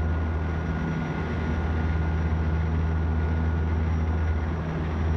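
Airliner cabin noise on final approach: a steady low drone of engines and rushing air, with a faint steady whistle that fades out near the end.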